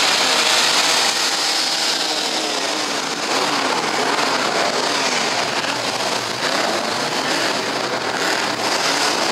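Many classic Ford Mustang V8 engines revving at the same time, their pitches rising and falling in overlapping waves.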